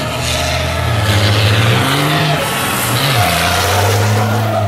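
Racing trucks' diesel engines revving hard during a burnout and powerslide show. The engine note holds steady, then swings up and down a few times about two to three seconds in, over a steady rushing hiss.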